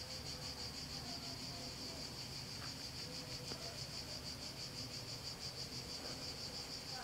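Insects singing in the roadside vegetation: a steady, high-pitched buzz that pulses rapidly and evenly.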